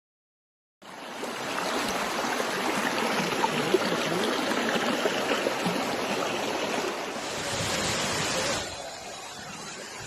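Waterfall's rushing water, a steady dense hiss of falling water that starts about a second in and drops to a quieter level near the end.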